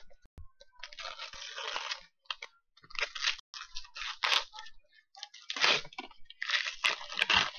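Packaging being torn and crinkled open by hand, in about five irregular rustling bursts.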